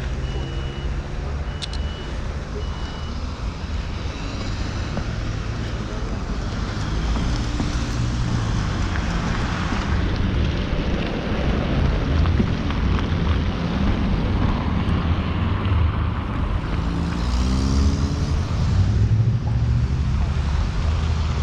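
Street traffic: cars and trucks passing with a steady rumble of engines and tyres. A short electronic beep repeats a few times in the first few seconds.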